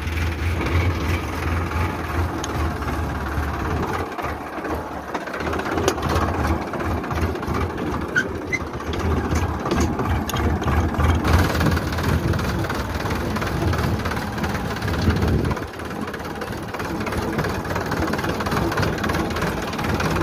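Sonalika DI 745 III tractor's three-cylinder diesel engine running steadily as the tractor drives across a field. The sound dips briefly twice.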